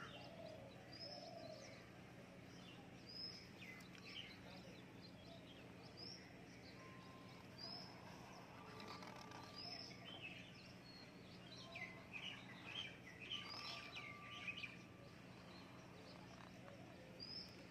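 Faint birdsong: a bird repeating a short high chirp about every second and a half, with a busier run of chirping about twelve seconds in, over a low steady hum.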